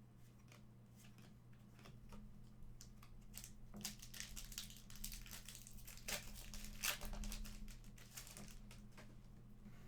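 A trading-card pack's foil wrapper being torn open and crinkled: a run of irregular rustling and tearing, busiest from about three and a half seconds in until about eight and a half.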